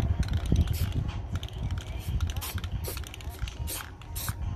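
Aerosol can of primer spraying in short hissing bursts, about two a second, over a low rumble of wind on the microphone.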